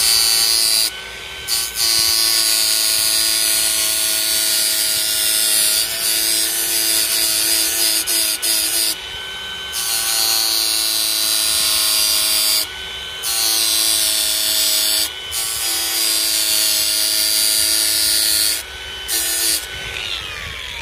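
Hand-held angle grinder with a sandpaper flap disc grinding the edge of a brush cutter blade: a steady motor whine under a strong grinding hiss. The hiss breaks off briefly about five times. Near the end the grinder is switched off and winds down with a falling whine.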